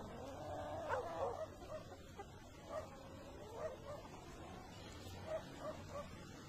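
An animal giving several short, high cries, the loudest about a second in, over a steady low hum.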